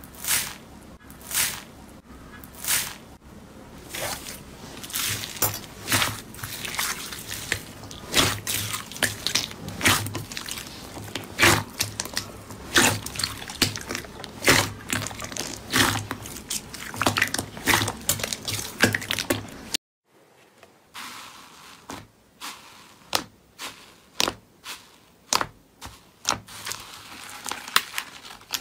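Slime being pressed and squeezed by hand: a run of wet pops and squelchy crackles, one or two a second, as trapped air bursts. After a short break about two-thirds through, the pops come softer and more spaced.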